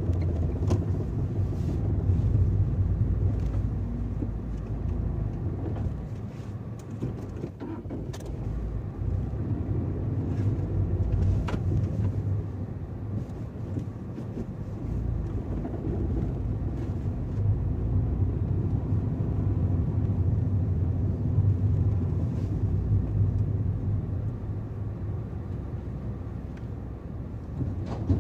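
Tata Tiago hatchback on the move: steady road and drive rumble with scattered clicks and knocks from the car's rattle. The rattling began within the car's first month and the service centre has not identified its cause.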